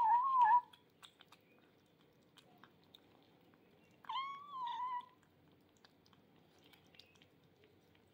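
Kittens meowing over a bowl of wet food: one short meow ending just after the start, and a second, wavering meow about a second long starting about four seconds in. Between the meows come soft, scattered clicks of chewing and lapping.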